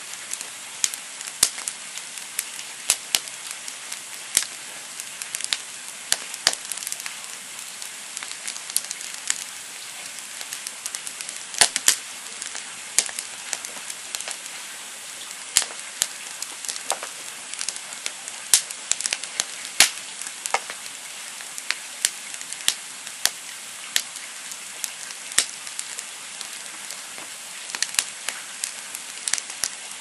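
Wood campfire of split logs burning: a steady hiss with frequent sharp, irregular crackles and pops, a few of them markedly louder.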